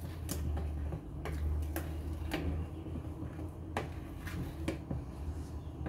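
Wooden spoon tapping and scraping against a plastic mixing bowl as cake batter is cut and folded, a scatter of short, irregular taps over a steady low hum.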